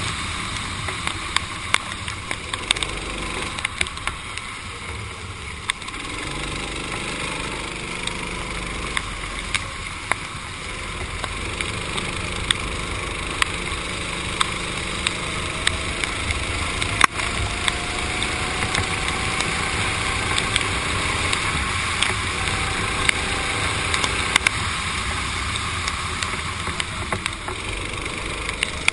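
Go-kart engine running at speed, its pitch rising and falling as the revs change, under a steady rushing hiss from the wet track. Scattered sharp clicks sound throughout.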